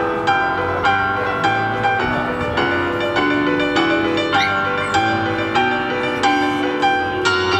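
Instrumental passage of a song played live on a Casio digital keyboard in a piano voice with an acoustic guitar, the chords struck in a steady pulse a little under twice a second.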